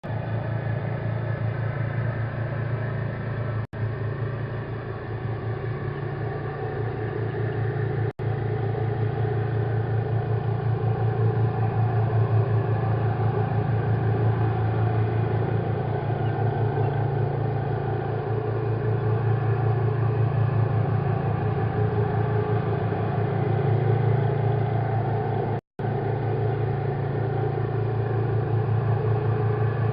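Loud, steady mechanical drone with a fast, even low pulsing, which the uploader suspects is a helicopter. The sound drops out for an instant three times.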